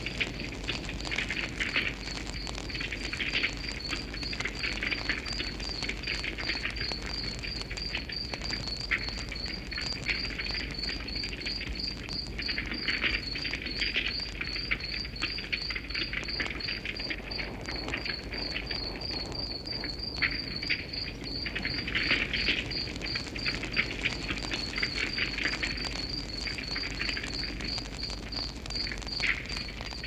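Wood fire crackling and popping with scattered sharp snaps, while an insect chirps steadily and high-pitched, about three chirps a second.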